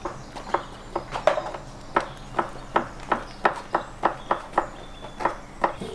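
Knife chopping meat on a wooden cutting board: a run of about fifteen sharp strikes, two or three a second.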